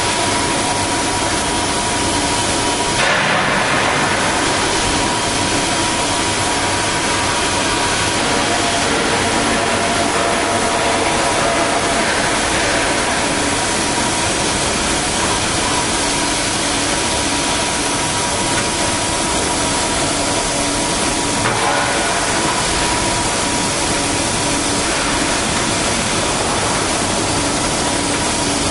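Cutting torch of a CNC plate profiling machine burning through steel plate: a loud, steady hiss with a steady whistle-like tone in it, the hiss swelling briefly about three seconds in.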